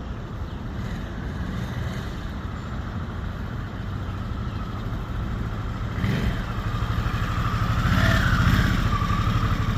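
Harley-Davidson Sportster S's stock-exhaust Revolution Max 1250 V-twin engine running with a steady low pulsing beat, growing louder from about six seconds in and peaking around eight seconds.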